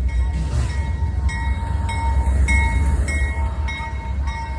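CSX intermodal train's diesel locomotives running with a deep steady rumble as the train pulls away from a standstill. A grade-crossing bell dings regularly over it, a little under two strikes a second.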